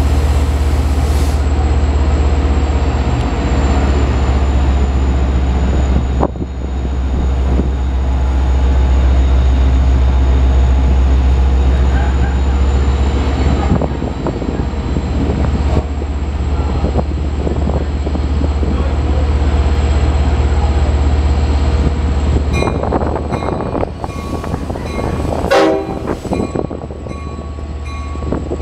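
EMD DE30AC diesel-electric locomotive's 12-cylinder 710 engine running with a deep, steady rumble as it pulls a train slowly along the platform, easing off about six, fourteen and twenty-three seconds in. A brief higher-pitched sound comes near the end.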